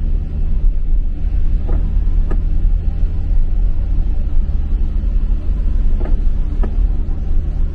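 Steady low rumble of a vehicle heard from inside the cabin while driving on a rain-wet road.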